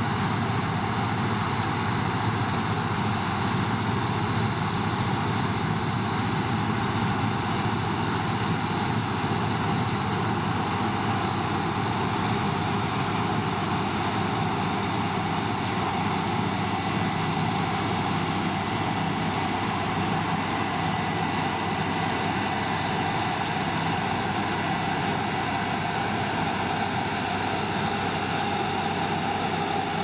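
Claas Lexion 750 combine harvester running steadily while cutting barley: engine and threshing machinery in one even drone, with a faint steady whine above it.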